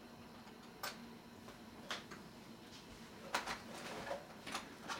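Small plastic toy accessories clicking and tapping against a plastic tray as they are handled: about half a dozen short, sharp clicks, the loudest a little over three seconds in.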